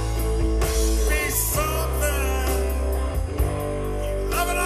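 Live rock band playing electric guitars, bass, drums and keyboard, with a steady bass line under sustained guitar notes.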